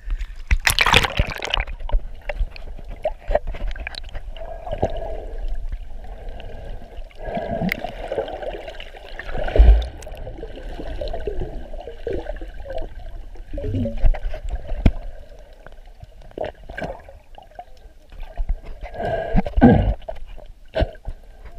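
Sea water heard underwater: a splash as the microphone goes under, then muffled water sloshing and gurgling with scattered clicks and knocks, with louder surges about halfway through and near the end.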